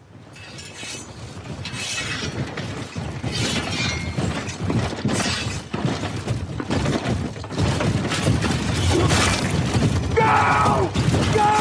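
Cinematic combat sound effect: a series of shattering, clattering crashes about every second and a half over a low rumble that grows louder throughout, with a wavering pitched sound about ten seconds in.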